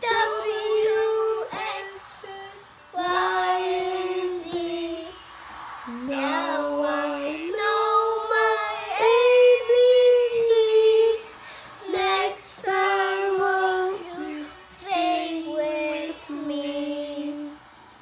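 A young child and a woman singing a children's song together, in held notes across several phrases with short pauses between them.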